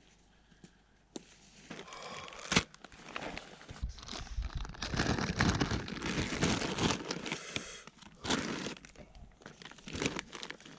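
Plastic bags and food wrappers crinkling and rustling as lunch is unpacked, with a sharp click early on. The handling is busiest through the middle.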